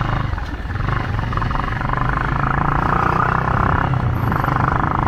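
Motorcycle engine running while riding, a fast, steady pulsing throb that dips briefly about half a second in and then holds steady.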